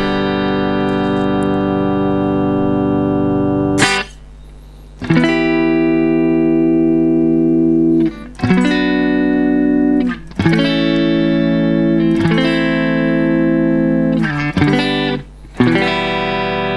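Ibanez RC720 Premium electric guitar with humbucker pickups, played on a clean amp tone: sustained chords left to ring, each held a second or more before the next, with a brief stop about four seconds in.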